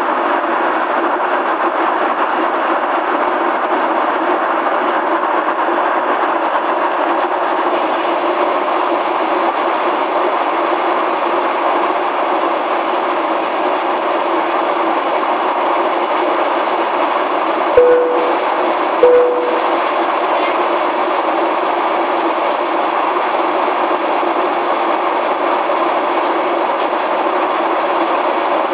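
Steady cabin noise of a Boeing 737-800 jetliner in flight: a constant rush of airflow and engine noise heard from a window seat. About two-thirds of the way through, two short tones sound a little over a second apart.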